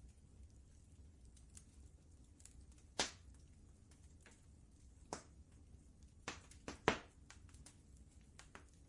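Wood fire crackling: sharp, irregular pops, the loudest about three seconds in and a quick cluster around seven seconds, over a low steady rumble.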